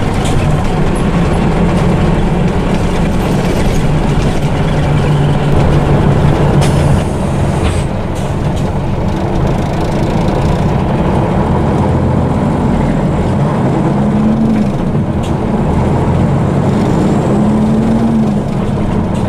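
Scania diesel engine of an Ikarus EAG E94 bus heard from inside the passenger cabin while driving, running steadily over road and tyre noise. Its note rises and then falls off about seven seconds in, and swells and eases twice more near the end.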